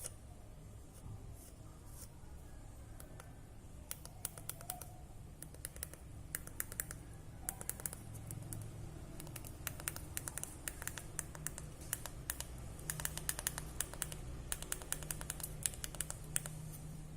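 Irregular runs of rapid light clicks, starting about four seconds in and growing denser, over a steady low hum.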